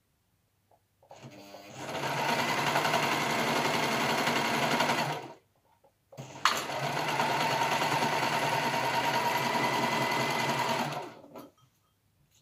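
Overlocker (serger) stitching a seam through fabric, running in two stretches of about four and five seconds with a brief stop between. It starts off quietly and comes up to full speed within about half a second.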